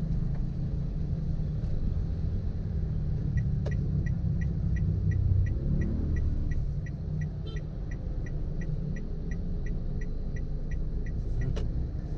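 Steady road and engine rumble inside a car, with the turn-signal indicator ticking about three times a second from a few seconds in until near the end, signalling the left turn. A sharp click marks its start and end.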